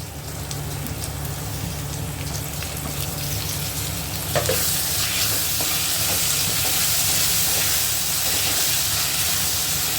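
Onions, ginger-garlic paste and chopped tomatoes frying in oil in a kadai, sizzling steadily. About four and a half seconds in there is a knock, and the sizzle grows louder and hissier.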